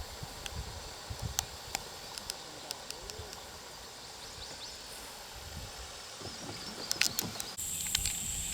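Quiet river outdoor ambience with faint bird chirps and a few small clicks or knocks.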